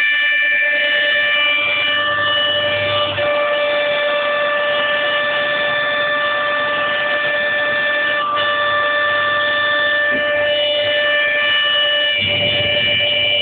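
Homemade CNC mill running with a steady high whine while it surfaces (faces) its own work table flat. The tone shifts briefly a few times as the cut moves.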